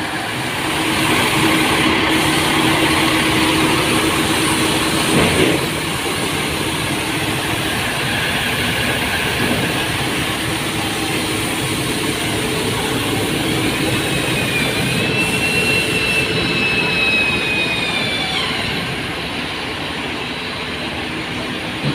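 Large diesel engine idling steadily. A faint high whine rises and falls for a few seconds past the middle.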